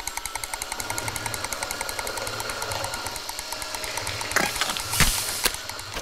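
Cartoon ice cream machine sound effect: a rapid, even mechanical clatter as the machine runs and fills a cone, with a few louder knocks about four and five seconds in.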